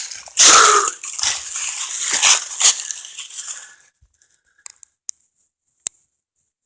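Footsteps crunching through dry leaves and brush, stopping about four seconds in, then a few faint ticks.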